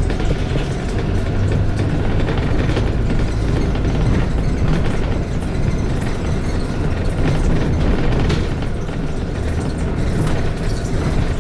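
Inside a London double-decker bus: a steady, loud engine drone with scattered rattles and knocks from the bus body.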